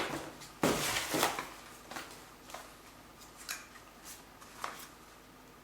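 Rustling and light clicks of packaging and items being handled, with a louder rustle from about half a second to a second and a half in, then scattered small clicks.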